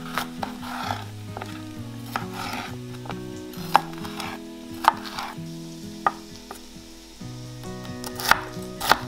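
Knife chopping vegetables on a cutting board: sharp knocks about a second apart, coming quicker near the end, with some scraping between them, over soft background music.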